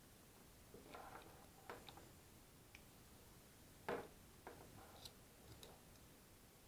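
Faint, scattered clicks and light knocks of small hard parts being handled, about seven of them, the sharpest about four seconds in.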